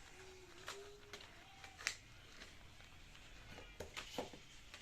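Faint clicks and light handling noises from a phone box and its packaging being opened, with a short, soft wavering hum lasting about a second at the start.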